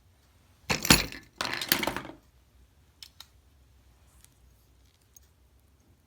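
Handling noise: two short bursts of metallic clattering and rattling about a second in, then a few faint clicks.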